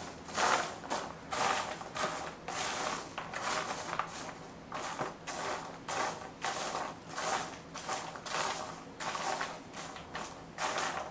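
Handful of freshly popped popcorn rustling and crunching in a plastic tub as a hand digs and scoops through it, in short irregular bursts, while the unpopped kernels are being looked for.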